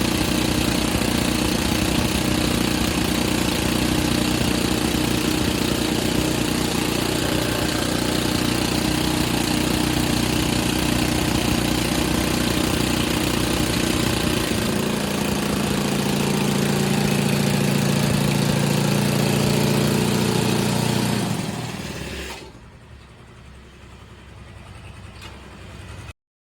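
Diesel engine of an excavator-mounted drilling rig running steadily; its note deepens and strengthens about halfway through, then the machine sound drops away sharply near the end, leaving only a faint low background.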